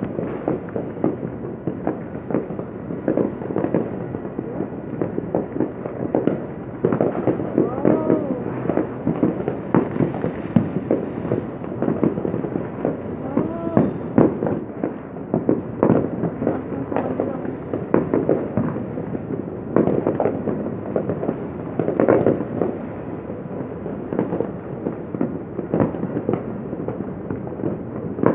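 New Year fireworks and firecrackers going off in a dense, unbroken run of pops and bangs, with somewhat louder bursts about 7, 14 and 22 seconds in.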